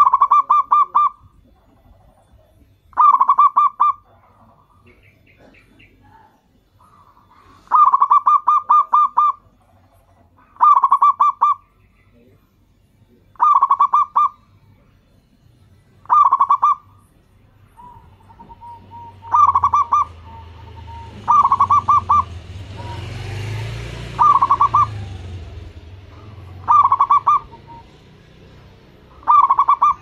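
Zebra dove (perkutut) song: bursts of rapid staccato coos, each about a second long, repeated every two to three seconds. About two-thirds of the way through, a low rushing noise swells and fades under the calls.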